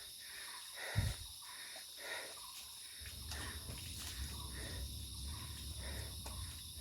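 Steady high-pitched insect drone, typical of crickets in tropical forest. A short low thump comes about a second in, and a low rumble sets in about three seconds in.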